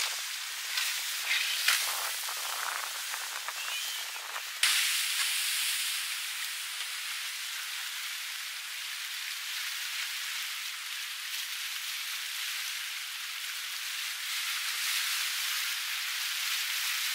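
Steady hiss of rain, with scattered sharp ticks in the first few seconds. It turns suddenly louder a little under five seconds in.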